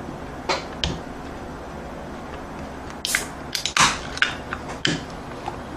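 An aluminium can of La Croix sparkling water being handled and opened: a couple of clicks, then a short hiss about three seconds in as the tab is cracked, followed by several more clicks and knocks.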